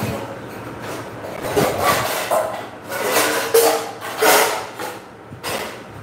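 Handling noises from someone moving about off-camera: a run of rustles, rubbing and light knocks, starting about a second and a half in.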